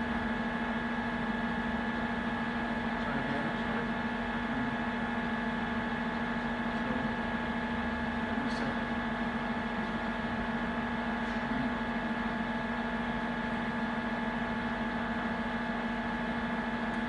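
Mori Seiki TL-40 CNC lathe running with a steady hum: a constant low tone and a higher, thin whine over an even machine noise.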